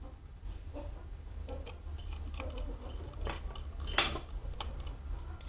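Scattered small metallic clicks and clinks of a screwdriver and screws as an SSD is screwed into a laptop, with one sharper click about four seconds in.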